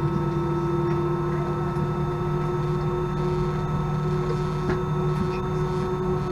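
Steady cabin drone inside an Airbus A319 on the ground, a hum made of several steady tones over a noise bed, the main tone creeping slightly up in pitch; one faint click about four and a half seconds in.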